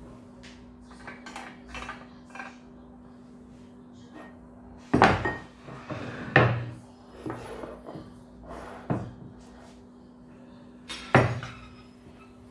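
Kitchen dishes and utensils being handled: scattered light clinks and knocks, with louder knocks about five, six and eleven seconds in, over a faint steady hum.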